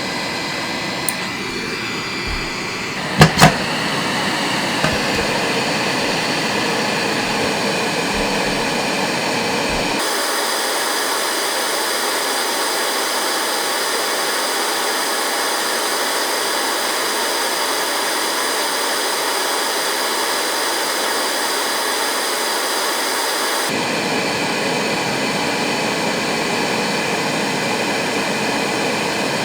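FNIRSI SAG-55 hot air gun's fan blowing steadily, a hiss with a faint motor whine. Two sharp loud clicks come about three seconds in. The low rumble drops out abruptly about ten seconds in and returns about six seconds before the end.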